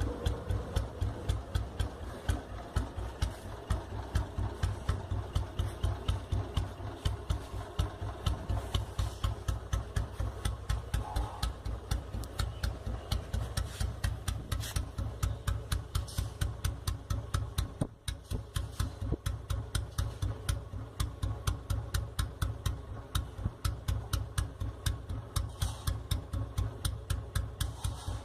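Vintage Royal Enfield Bullet's single-cylinder four-stroke engine idling at low rpm with its characteristic thump, an even beat of about three pulses a second.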